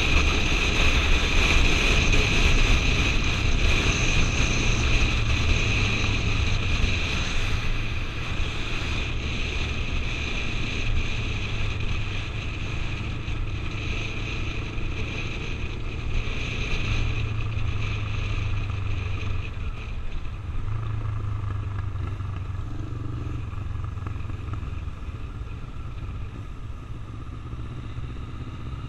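Motorcycle engine running steadily at road speed, with wind rushing over a helmet-mounted camera. The rush fades and the whole sound grows gradually quieter over the second half.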